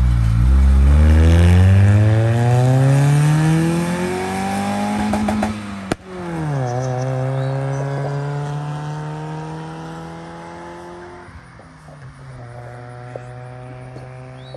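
Loud pickup truck engine accelerating hard, its pitch climbing for about five seconds, then a sharp snap and a sudden drop in revs as it shifts up. It then pulls at a lower, steady note that slowly eases off and settles near the end.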